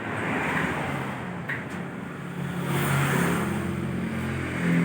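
A motor vehicle engine running, its low hum swelling around the middle and again near the end.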